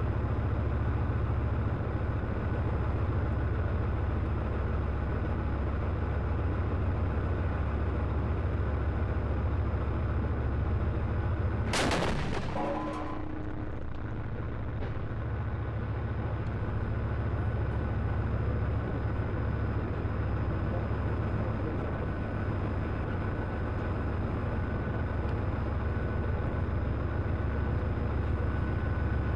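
Leopard 1 tank's V10 diesel engine running steadily, heard from on top of the turret. About twelve seconds in, its 105 mm main gun fires a single shot: one sharp blast with a short ringing tail.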